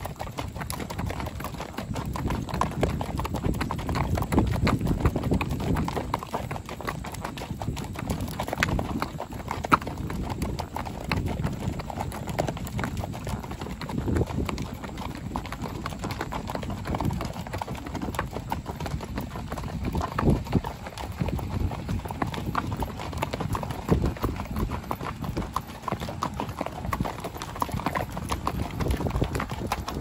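Hooves of several walking horses clip-clopping on a dirt and gravel road, a steady overlapping patter of footfalls.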